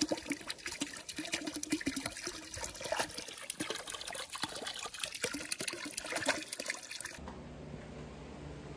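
Garden hose pouring into a plastic kiddie pool while a dog wades and splashes in the water, snapping at the stream. About seven seconds in it cuts off suddenly to a steady low hum.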